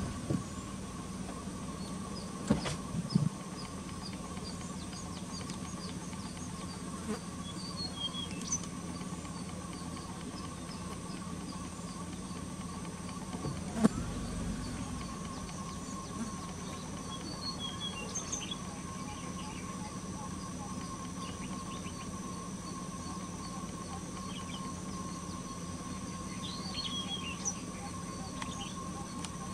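Outdoor ambience: a steady hum with scattered faint, high bird chirps and a few sharp clicks.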